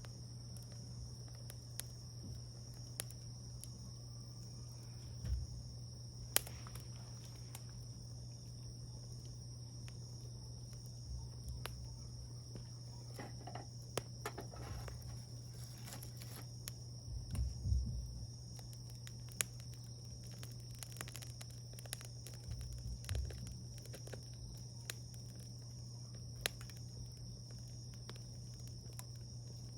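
Wood campfire burning, crackling with scattered sharp pops at irregular intervals, over a steady high chirring of insects. There are a few soft low thuds.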